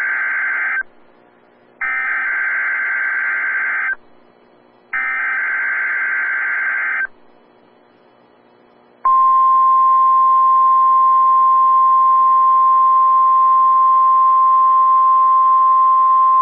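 NOAA Weather Radio Required Weekly Test signalling: the end of one burst and two more harsh, buzzing bursts of SAME digital header data, each about two seconds long with a second's gap between them. After a short pause, the steady single-pitch warning alarm tone starts about nine seconds in and holds.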